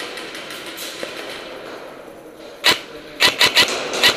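Airsoft guns firing in short bursts of sharp snaps: a single shot a little past halfway, then three quick shots and one more near the end, over a steady rustling hiss.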